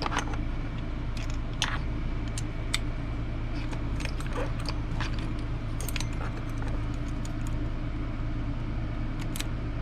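Scattered light metallic clicks and clinks of hand tools and small metal parts being handled while an RC truck is taken apart, over a steady low hum.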